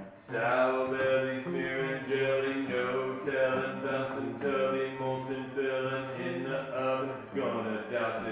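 Low male voice singing long held notes, with guitar accompaniment, after a brief pause at the start.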